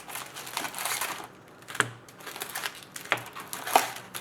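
Crinkling and tearing of card-box packaging being handled and opened, with a few sharp taps and clicks in the second half.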